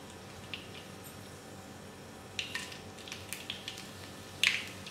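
Mustard seeds popping in hot oil in a frying pan during tempering, with dried red chillies just added: a few scattered sharp pops, the loudest near the end.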